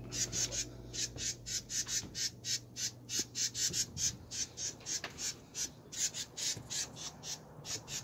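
A bird scolding: short, harsh, high calls repeated about four times a second without a break.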